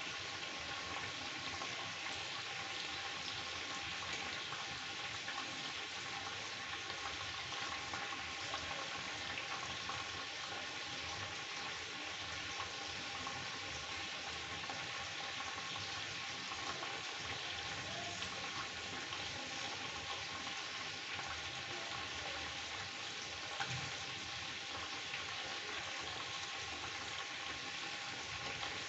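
Chicken pieces frying in an iron kadhai: a steady sizzle with fine crackling, and a single light knock near the end.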